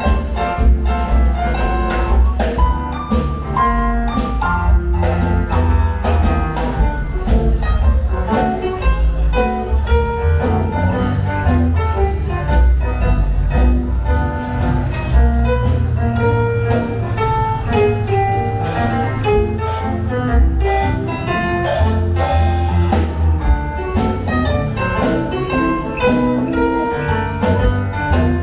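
Instrumental jazz-style music with a bass line, drums and melodic instruments playing steadily.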